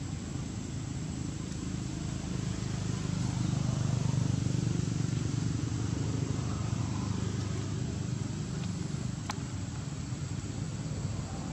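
Steady low outdoor rumble with an even hiss over it, and a short sharp click about nine seconds in.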